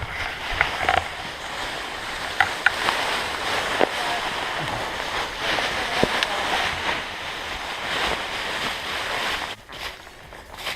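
Steady rushing of waterfall water, with a few sharp knocks and clicks; the rush drops away suddenly near the end.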